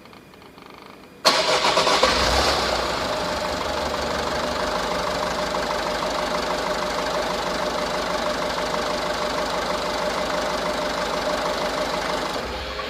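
Peugeot 407 1.6 HDi four-cylinder turbodiesel engine started about a second in, catching at once and idling steadily, then switched off near the end and running down. The shutdown is the moment where the owner reports an unusual engine noise.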